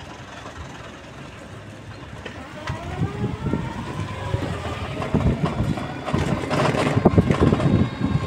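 Engine of a small open motor vehicle, probably a motorcycle tricycle, running on the move. It speeds up with a rising pitch from about three seconds in and grows louder, with wind and road rumble buffeting the microphone.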